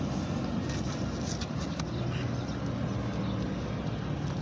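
An engine running steadily with an even low hum, with faint scratching and clicks as the nylon mesh of a collapsible crab trap is handled.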